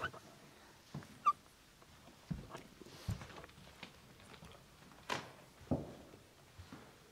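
Footsteps and scuffs of sneakers on a debris-strewn floor: irregular knocks, with a short squeak about a second in.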